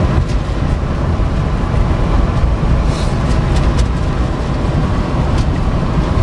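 Inside the cab of a Cummins turbo-diesel Ram pickup cruising at highway speed: a loud, steady drone of tyre and engine noise, with scattered light clicks from paper over the back window flapping in the wind.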